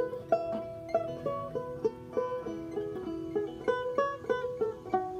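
Five-string banjo picked solo: a steady, quick run of plucked notes, several a second, each ringing briefly.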